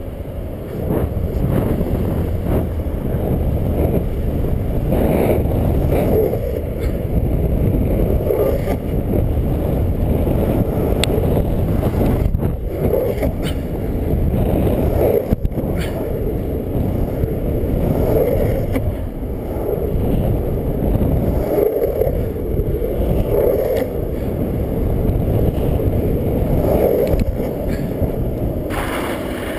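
Longboard rolling fast on asphalt: a loud, steady low rumble of wheels on the road, mixed with wind buffeting the microphone that swells and eases every couple of seconds.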